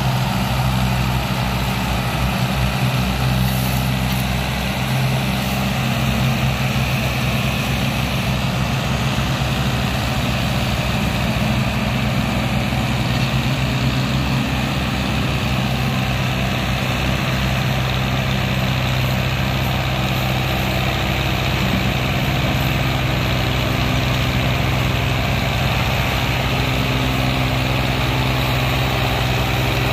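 Massey Ferguson tractor diesel engines running steadily under load, pulling a trolley heavily loaded with sugarcane across a field; the engine note shifts slightly about two-thirds of the way in.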